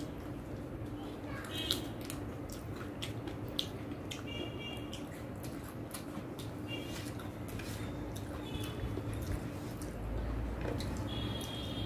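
Close-miked eating sounds: chewing and wet mouth clicks after a bite of green chilli, with the squish of rice and chicken curry being mixed by hand.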